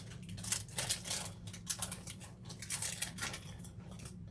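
Rummaging through craft supplies for black air-dry clay: a run of short rustles, crinkles and light clicks over a faint steady hum.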